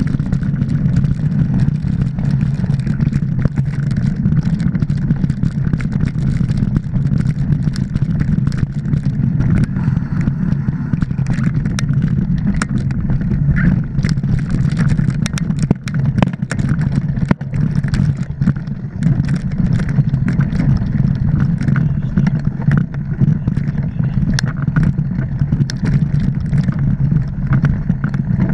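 Mountain bike ridden fast over a dirt and leaf-covered singletrack, picked up by a mounted action camera: a steady, loud rumble of tyres and wind, with frequent sharp clicks and rattles as the bike jolts over bumps.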